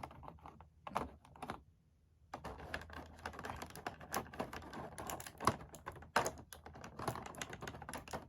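Small plastic action-figure accessory hands being handled and taken out of their packaging: a couple of clicks, then a busy run of sharp plastic clicks and clatter.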